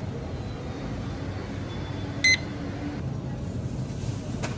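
Two short, sharp electronic beeps about two seconds apart, over a steady hum of supermarket background noise.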